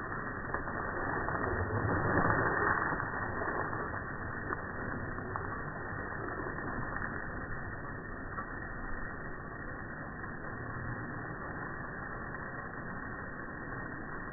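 Garden hose spray striking a lawn and a dog playing in it, slowed down in slow-motion playback into a dull, muffled rushing. It swells louder about two seconds in.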